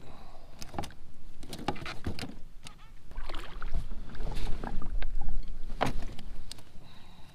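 Hooked white bass splashing at the surface beside a plastic kayak as it is reeled in and landed, with water sloshing and scattered knocks and clicks against the hull. The splashing and knocking come thickest and loudest in the middle of the stretch.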